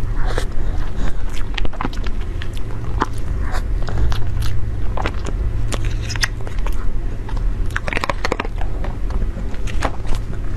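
Close-miked eating of a soft taro-paste dessert: chewing with many small wet mouth clicks, along with a spoon scraping and a clear plastic dessert box being handled.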